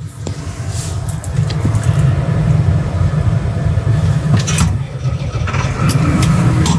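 Diesel tractor engine running under load while pulling a heavy, loaded muck dump trailer. A steady low rumble whose note rises about five and a half seconds in.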